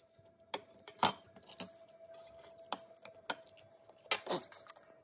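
Chopsticks and a metal spoon clinking and tapping against ceramic bowls and plates: a handful of separate sharp clicks, the loudest about a second in, over a faint steady hum.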